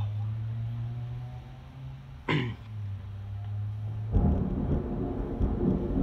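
Thunderstorm: a steady low rumble with a short sharp crackle about two seconds in, then a loud rolling thunder rumble that breaks in about four seconds in and keeps going.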